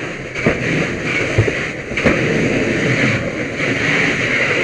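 Fire hose nozzle flowing water into a burning room to knock down the fire: a loud, steady rush and hiss, with a few sharp knocks in the first two seconds.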